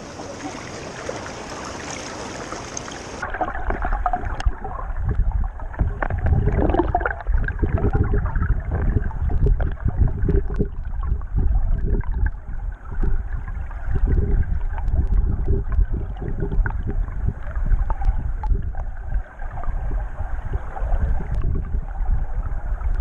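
Wind rushing and buffeting over the microphone of a moving motorcycle: a heavy low rumble that swells and drops unevenly. About three seconds in, the sound changes abruptly from an even hiss to this duller, heavier rumble.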